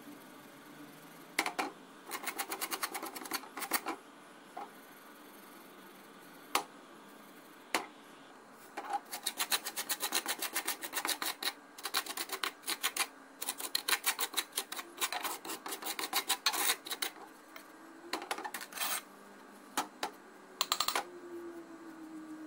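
A metal spoon stirring and scraping dry, loose soil in a metal saucepan, in quick runs of rapid scrapes against the pan with short pauses and a few single taps in between. The soil sample is being dried over the heat.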